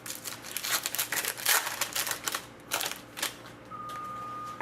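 A sports card pack being torn open and its cards handled: a quick run of crinkling wrapper and card rustles. About three and a half seconds in, a steady high electronic tone starts and holds.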